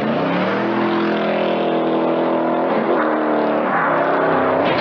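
A car engine revved hard and held at high revs under full throttle. The pitch climbs at the start, stays high, dips briefly about three seconds in, then climbs again.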